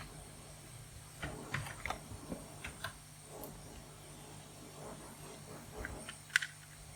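Scattered light clicks and taps: a cluster about a second or two in and a sharper tick near the end, over a steady low hum.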